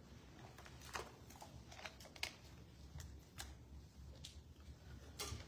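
Faint, scattered clicks and crinkles of a plastic water bottle being handled after a drink, then set down on a wooden lectern near the end, over a low room hum.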